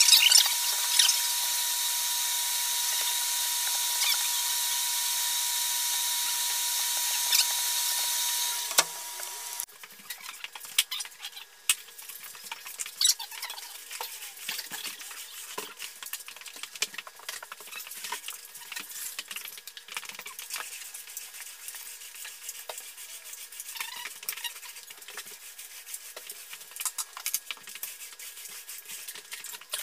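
A power tool's motor runs steadily with a high, even whine, then shuts off about nine seconds in. After that come light scraping, rubbing and scattered clicks.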